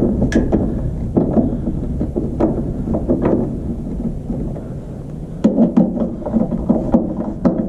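A hand screwdriver driving a screw through a ceiling fan mounting bracket into an electrical box, with a rough turning noise and several sharp clicks that get louder about five and a half seconds in. A steady low rumble, like wind on the microphone, runs underneath.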